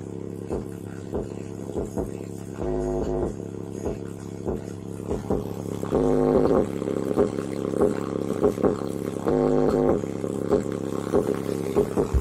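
Bass-heavy music played loud through a bare 35GDN low-frequency woofer (a Soviet-made driver) on a homemade toy-car bass box, with a steady beat of about two hits a second. Deeper bass passages come in about three, six and nine and a half seconds in.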